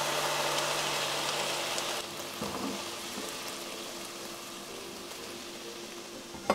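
Frying pan of green peppers sizzling as the sauce is poured into the hot pan, loudest at first and dying down gradually over the next few seconds.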